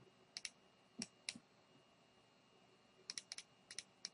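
Computer mouse and keyboard clicks. A few short clicks come in close pairs, then after a pause of about a second and a half a quicker run of clicks follows near the end.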